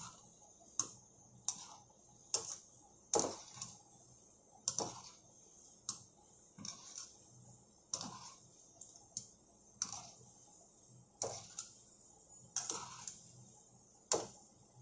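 Gulab jamun dough balls deep-frying in hot oil: a steady high sizzle with irregular sharp pops and crackles, about one or two a second.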